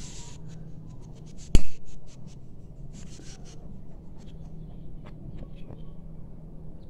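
A single sharp click about one and a half seconds in as a handheld gas lighter is struck to light, followed by faint scattered taps and clicks of handling.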